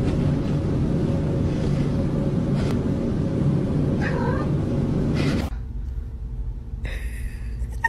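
Domestic cat meowing briefly about four seconds in, over a loud steady hiss and hum that drops away suddenly after about five and a half seconds. Another short high call comes near the end.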